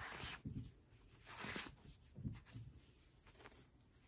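Faint rustling of fabric rug strips being handled and pulled through a slit to join one strip onto another. It comes as a few soft swishes, most of them in the first half.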